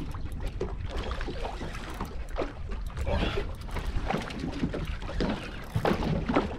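Wind and water noise on a small boat at sea: a steady low rumble with irregular rustling and knocking over it.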